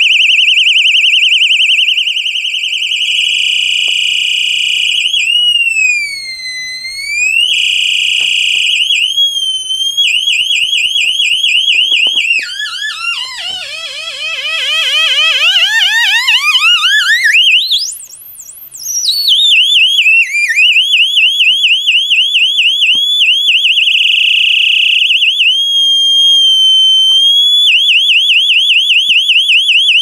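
Homemade two-NE555-timer siren circuit driving a 4-ohm speaker: a loud, shrill electronic tone rapidly warbling up and down, its pitch and warble rate changing several times as the potentiometers are adjusted. At one point it swoops slowly down and back up, and later it sweeps far lower before climbing back. It cuts off suddenly near the end.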